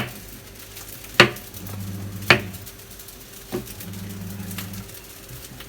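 A utensil clinking sharply against a pan four times, about a second apart, while fried rice sizzles faintly over a steady low hum.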